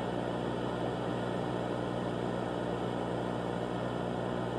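Steady static hiss with a low, even electrical hum underneath, unchanging throughout.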